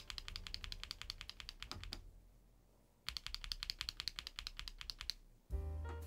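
Switches on a LEOBOG Hi75 aluminium-case, gasket-mount mechanical keyboard pressed rapidly, about ten clicks a second, in two bursts of roughly two seconds with a short pause between. Background music comes in near the end.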